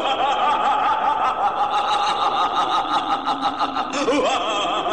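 A long, high-pitched cackling laugh with rapid pulses, wavering in pitch and falling near the end.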